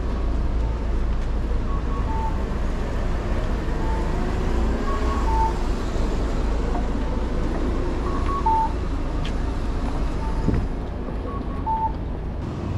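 Busy street ambience: a steady low rumble and haze of crowd murmur, with short high beeps recurring every second or two.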